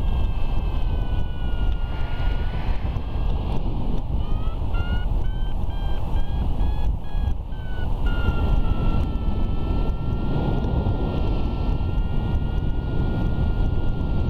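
Wind buffeting the microphone throughout a paraglider flight, with a paragliding variometer sounding over it. The vario holds a steady tone, then from about four seconds in gives a run of short beeps, about two or three a second, climbing in pitch, the signal that the glider is rising in lift, before settling back into a steady tone near the end.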